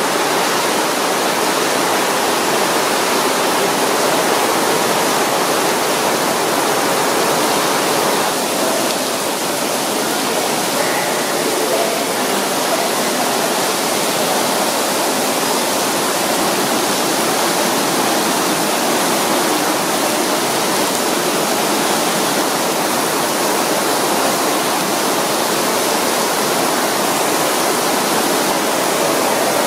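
Artificial indoor rain from the Rain Room's ceiling grid of nozzles, falling in a dense sheet onto the floor: a steady, even hiss of water.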